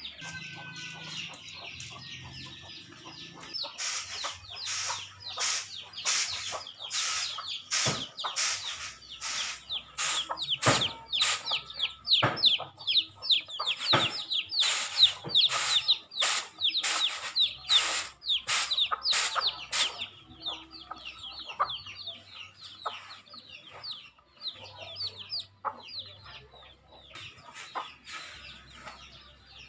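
Chicks peeping continually in short falling chirps, with a hen clucking. Over this comes the rhythmic swish of uncooked rice tossed on a flat winnowing tray, about two strokes a second, strong for most of the first two-thirds and fainter after that.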